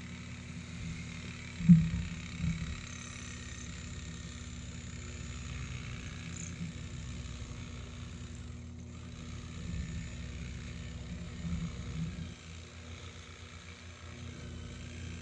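Honeybees buzzing around an opened hive as a steady low hum, with a sharp thump about two seconds in and a smaller one soon after from frames being handled.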